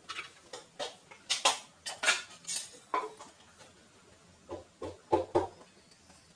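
Dishes and utensils clinking and clattering as they are handled, in a string of irregular knocks, loudest about a second and a half in and again around five seconds in.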